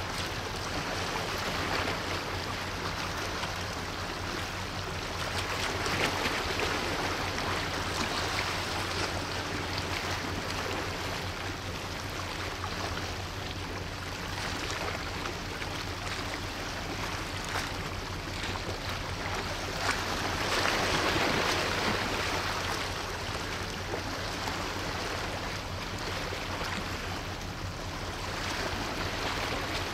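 Steady rushing and washing of water with a low steady hum underneath, swelling louder about six seconds in and again around twenty to twenty-two seconds.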